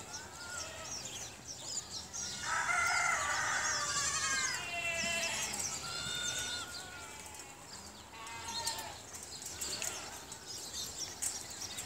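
Fat-tailed (dumba) sheep bleating: several calls from the flock, the loudest a long bleat about two and a half seconds in, followed by shorter ones.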